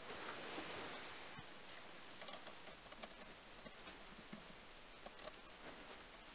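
Faint, scattered light clicks and ticks from a mini lathe's compound slide being worked by hand at its handwheel. The slide runs in a new aluminium bearing block with needle thrust bearings.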